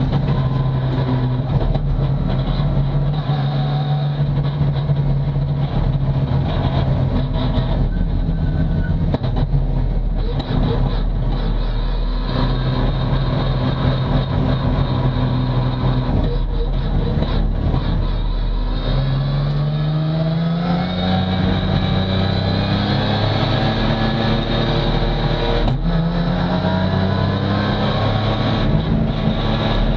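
BMW S54 3.2-litre straight-six in an E36 race car, heard from inside the cockpit. It runs at low, fairly steady revs for about the first two-thirds. It then pulls away, the revs climbing and stepping down a few times as the sequential gearbox upshifts.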